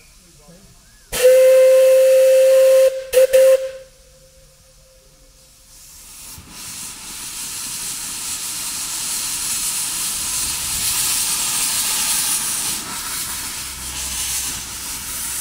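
Miniature-gauge steam locomotive's whistle gives one long steady blast about a second in, then two short toots. A few seconds later a hiss of steam builds up and grows loud as the engine blows steam from its open cylinder drain cocks while it gets under way.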